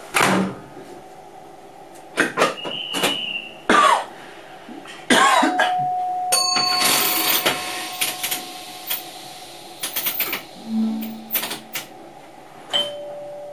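Sounds of a Mat '64 train's driver's cab as it gets ready to pull away: scattered clicks and knocks, several short electronic beeps and held tones, and a loud hiss about five seconds in that fades over a couple of seconds.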